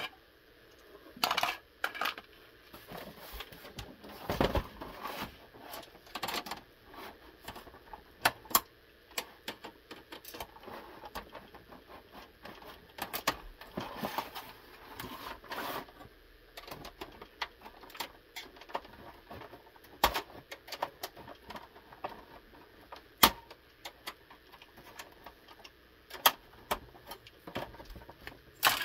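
Plastic clicks, taps and knocks from an Xbox 360 S console case being handled and worked on with a pry tool and screwdriver to open it, irregular throughout, with a few sharper clicks and some scraping and rustling between them.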